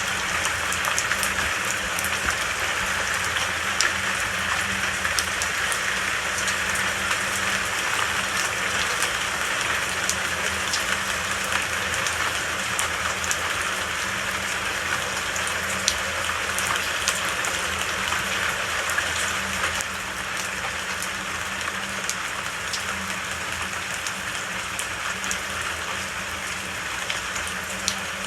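Steady rain falling, a dense hiss with many scattered individual drops ticking, easing slightly about two-thirds of the way through.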